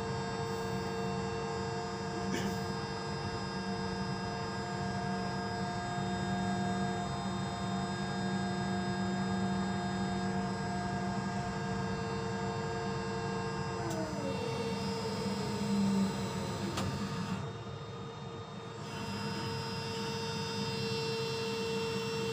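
Ship's deck crane machinery, its hydraulic power unit, humming steadily with several tones. About fourteen seconds in some of the tones slide down in pitch. Around eighteen seconds the hum dips quieter for a moment, then picks up again.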